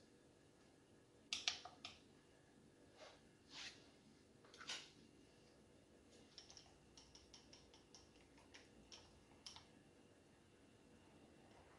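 Near silence broken by a few sharp clicks and taps, the loudest about a second and a half in, then a run of faint quick ticks a few seconds later. These are small plastic containers and kitchen utensils being handled and set down on a table.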